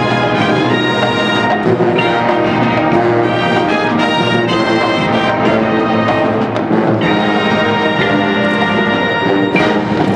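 Marching band brass playing a slow passage of held chords that shift every second or two.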